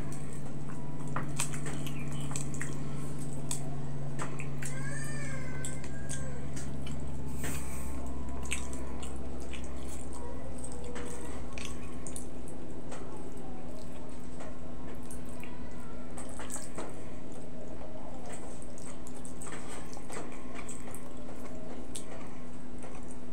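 Close-miked eating sounds: wet smacks, chewing and squishy ticks as fried tilapia and fermented rice are eaten by hand, over a steady low hum. About five seconds in comes a short, high wavering call.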